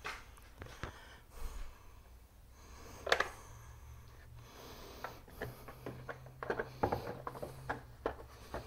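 Plastic air filter housing being handled and fitted onto a golf cart engine: scattered clicks and knocks of plastic parts, the loudest about three seconds in and a cluster of smaller ones later on.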